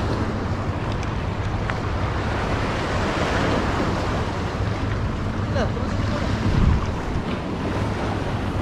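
Sea waves washing against a rocky seawall, with wind buffeting the microphone as a steady low rumble. There is a brief louder bump about six and a half seconds in.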